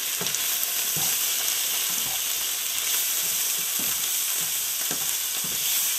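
Potato wedges frying in hot mustard oil in a nonstick pan, with a steady sizzle. A slotted spatula scrapes and stirs through the pan at irregular moments as cumin powder is mixed in.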